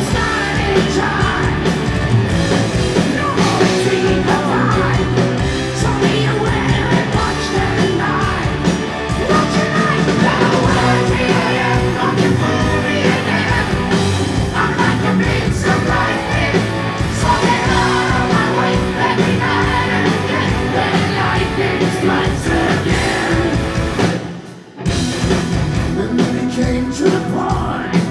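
Heavy metal band playing live, electric guitars, bass and drums with a male lead vocal, heard from the audience floor. About three-quarters of the way through, the band stops dead for under a second, then crashes back in.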